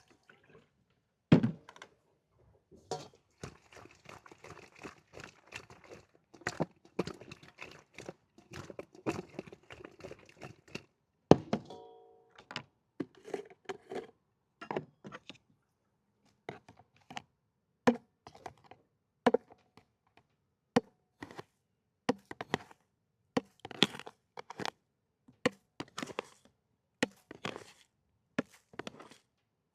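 Kitchen food-preparation sounds for a tofu dish: a long run of separate sharp knocks and thunks of utensils and chopping. Between about three and eleven seconds in there is a stretch of continuous rustling, mixing noise, and just after it a short ringing clink.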